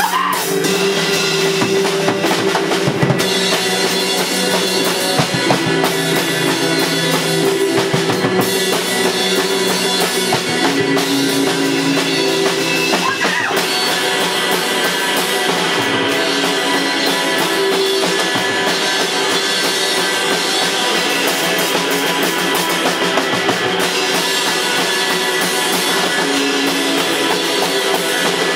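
Instrumental rock played by a band: drum kit with sustained guitar and bass parts, no vocals.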